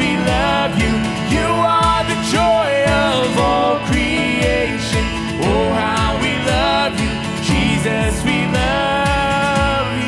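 Live worship band playing at full volume: a steady drum beat about twice a second under guitars and a gliding melody line.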